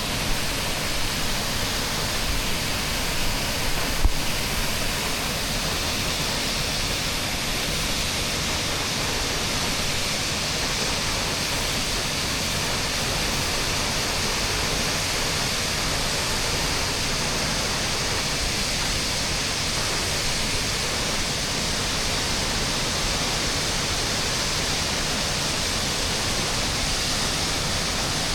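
Waterfall rushing steadily, with one brief knock about four seconds in.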